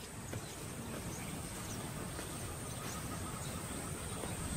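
Open savanna ambience: a steady background hiss with a thin, constant high tone and a few faint scattered chirps, slowly growing a little louder.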